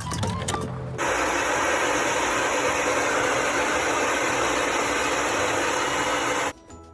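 A loud, steady, machine-like noise that starts abruptly about a second in and cuts off suddenly near the end.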